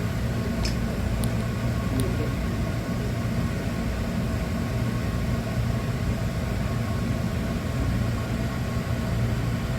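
Steady low hum and even rushing noise heard from inside a Hankyu electric train car during the depot car-wash ride, with a few faint ticks in the first two seconds.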